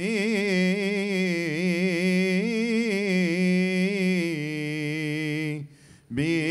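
A male Coptic cantor chanting a hymn solo, drawing one long vowel out through wavering vocal ornaments for about five and a half seconds. He breaks off briefly near the end, then starts the next phrase.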